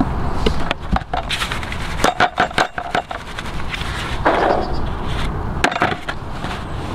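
Maggots being sieved through a bait riddle to shake off maggot-cleaner powder: the riddle and plastic tubs clatter in a quick run of clicks and knocks, and about four seconds in the maggots are tipped from the riddle into a plastic tub with a short rushing pour.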